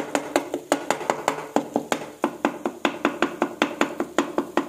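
Wooden spatula knocking and pressing against a frying pan as it breaks up and stirs scrambled egg magaz, in a quick even rhythm of about four knocks a second, each with a short ring from the pan.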